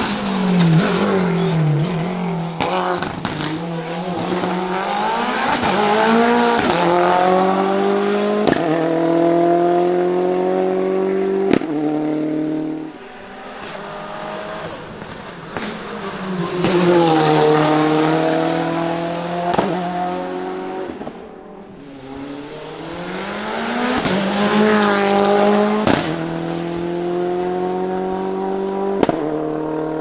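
Hillclimb race cars accelerating hard up the course, three passing in turn. Each engine revs high and climbs up through the gears, its pitch rising and then dropping sharply at each upshift, with a short crack at the changes.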